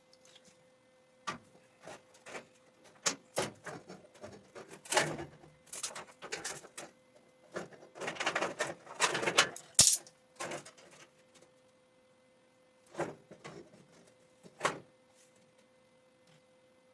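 Irregular clanks, knocks and scrapes of metal parts and hand tools being handled, in clusters and then two single knocks near the end, over a faint steady hum.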